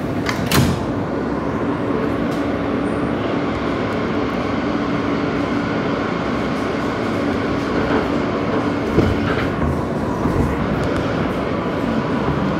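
New York City Subway L train doors closing with a knock about half a second in, then the train pulling out of the station, running with a steady hum and rail noise and a few wheel knocks as it gathers speed.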